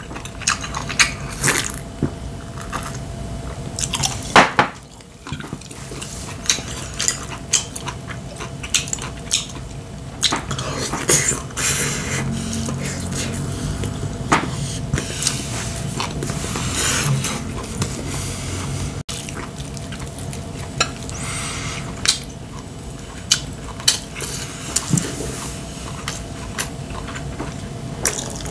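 Close-up eating sounds of a man chewing Korean holiday food: wet chewing and lip smacks, with chopsticks clicking on ceramic dishes, over a faint steady hum.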